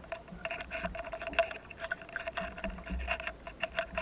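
Underwater ambience: irregular, rapid clicking and crackling over a steady hum.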